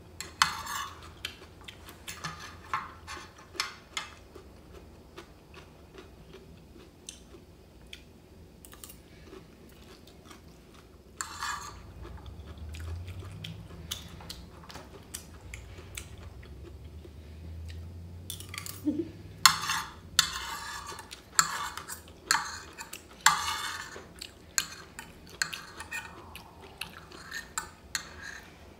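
Metal spoon and fork clinking and scraping on a ceramic plate while noodles are eaten, with chewing between the clinks. The cutlery sounds come thickest and loudest about two-thirds of the way through.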